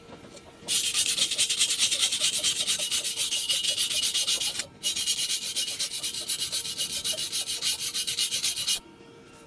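Stick welding arc crackling steadily in two runs of about four seconds each, with a brief break between them where the arc goes out and is struck again.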